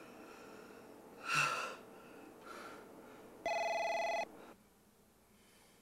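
A telephone rings once: a steady electronic ring lasting under a second, about three and a half seconds in. A brief noise comes earlier, about a second and a half in.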